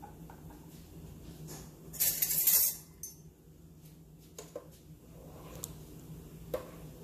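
Metal ladle clattering and scraping against a stainless steel stockpot as it is picked up and dipped into thick chocolate syrup: one loud scraping clatter about two seconds in, then a few light clinks while it stirs.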